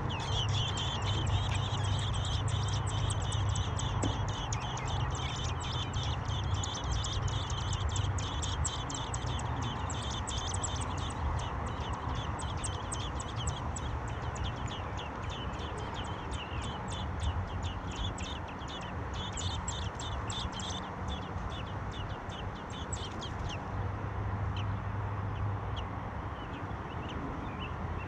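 American robin nestlings begging for food: a rapid, high-pitched chorus of peeps that starts as the parent arrives with worms and dies away a few seconds before the end. A low steady hum runs underneath.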